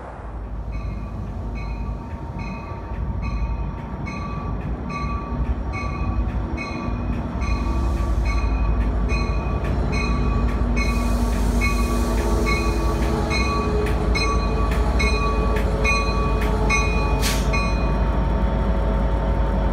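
Bell of an EMD F59PH diesel passenger locomotive ringing steadily, about one and a half strokes a second, as the train pulls slowly into the station. The engine and wheel rumble grows louder over a steady whine. The bell stops with a sharp clank near the end.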